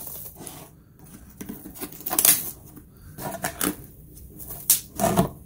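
Cardboard box flaps being folded back and the box handled, giving irregular scraping and rustling with a few louder scuffs.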